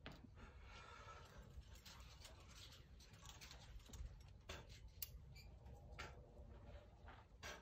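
Near silence broken by scattered faint clicks and light rustles, a few a second at irregular intervals, with slightly louder ones about four and a half, five and seven and a half seconds in.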